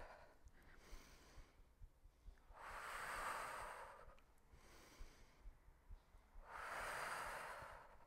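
A woman breathing with each rep of a power split-squat with knee drive. Two long, loud breaths come about four seconds apart, with fainter breaths between them.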